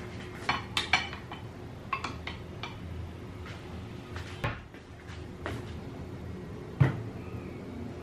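Kitchenware being handled: a few light ringing clinks of dishes or utensils in the first two seconds, a sharp knock about halfway, and a heavier thud near the end, over a steady low hum.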